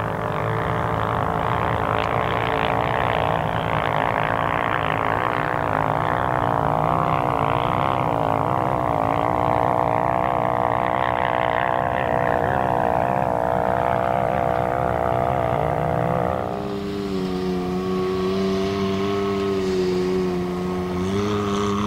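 Chevy pickup truck driving on the highway: steady engine hum and road noise. About 16 seconds in, the rushing road noise drops and the engine hum turns steadier and clearer.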